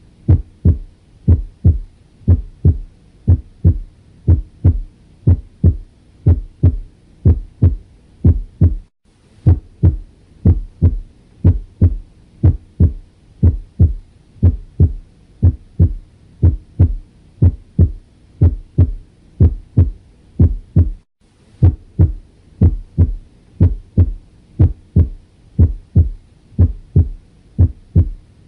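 Normal heart sounds through a stethoscope: a steady lub-dub rhythm, each beat a pair of low thuds. The first sound of each pair (S1) comes from the closing of the mitral and tricuspid valves as the ventricles begin to contract. The rhythm breaks off briefly twice.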